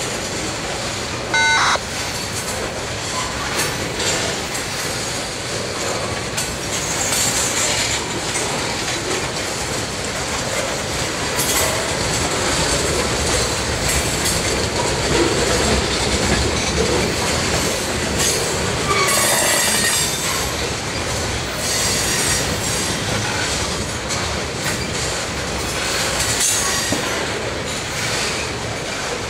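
Freight train of loaded tank cars rolling past: steady wheel-and-rail noise, with wheel squeal rising now and then. A short tone cuts in about a second and a half in.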